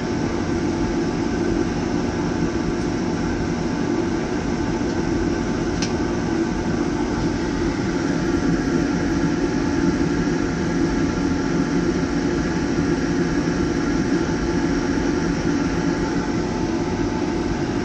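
Homemade waste-motor-oil drip furnace burning hard: a steady rushing burn noise with a constant hum and no change in pitch. The furnace is running rich in a runaway, its oil drip just turned down to bring it back.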